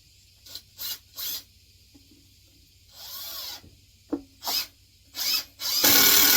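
Power drill driving a ceramic-coated deck screw into a glued 2x4 frame joint. It runs steadily for about a second and a half near the end, after a few short knocks and clicks of handling.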